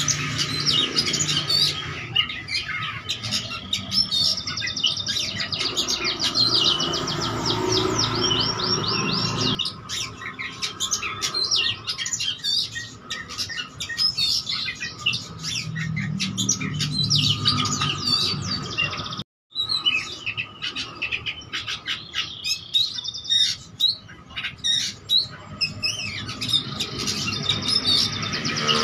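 An oriental magpie-robin (kacer) in full song: a loud, varied run of chirps, whistles and fast trills of quickly repeated notes, typical of a kacer's song filled with mimicked calls. The sound drops out for a moment about two-thirds of the way through.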